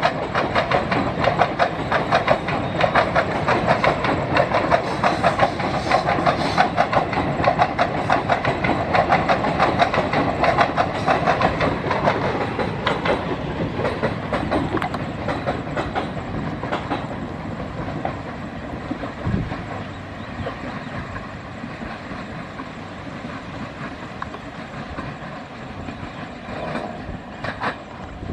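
A passenger train's coaches rolling past, their wheels clattering over the rail joints in a quick, steady rhythm. The clatter is loudest for the first dozen seconds, then fades as the train draws away.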